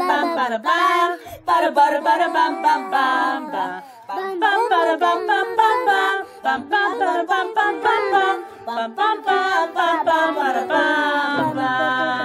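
Sung vocals with little or no accompaniment, a continuous melodic line, with low bass notes coming in near the end.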